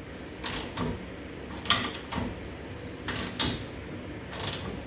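About five sharp clicks and knocks, spaced irregularly about a second apart, from tools or parts being handled during front-end assembly work.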